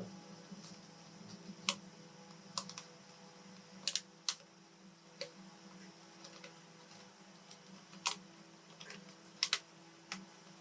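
Irregular sharp clicks and taps, about a dozen, from hands and small tools working on a laptop during an upgrade, over a steady low hum.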